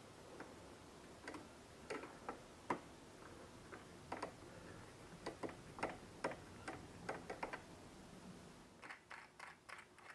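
Faint, irregular light clicks and taps of small metal parts being handled, with a quicker run of clicks near the end.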